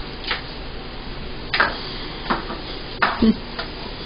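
About six sharp clicks and knocks of kitchen utensils against a pan or dishes, spaced irregularly, over a steady background hiss.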